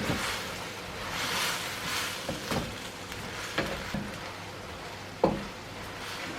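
Hokkien noodles and Chinese spinach sizzling in the pan as they are stirred, with a handful of short knocks from the stirring.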